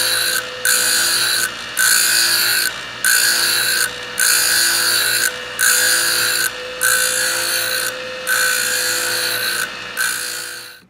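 Piston compression ring being ground on a ring filer's abrasive wheel to set its end gap: about ten grinding passes, roughly one a second, each separated by a brief pause, with a steady hum running underneath.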